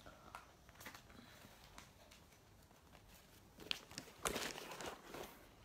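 Faint rustling and small clicks of a phone being handled, with a louder burst of rustling and knocks about four seconds in.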